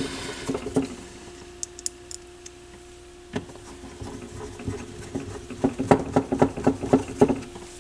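Hands handling the plastic cover panel and wiring on a turntable's underside: scattered light clicks and rustles, thickest in a cluster of taps near the end, over a faint steady hum.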